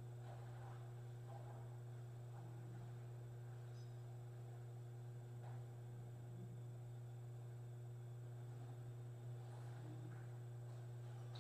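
Steady low electrical hum, with a few faint small knocks scattered through it.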